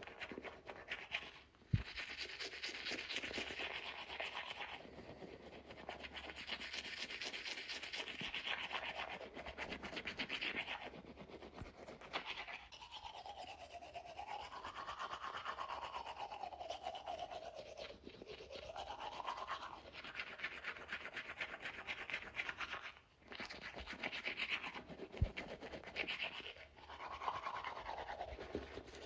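Toothbrush scrubbing teeth in steady back-and-forth bursts, with a brief pause about one and a half seconds in and another near the end. Two sharp clicks stand out, one just after the first pause and one shortly after the second.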